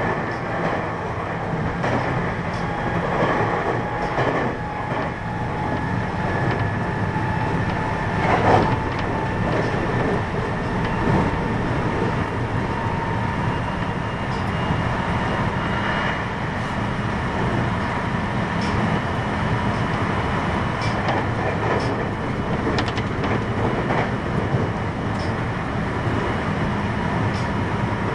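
Interior running sound of a JR West 521 series electric train, a motor car with a Toshiba IGBT inverter drive, travelling at a steady pace. Wheels rumble on the rail, with scattered clicks from the track and faint steady whining tones above.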